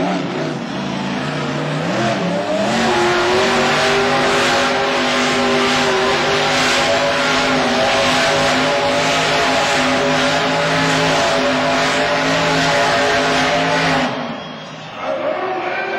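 Monster truck engines running at full throttle in a drag race. The pitch climbs over the first few seconds, then holds high and steady with a loud rush of noise, and cuts off suddenly near the end.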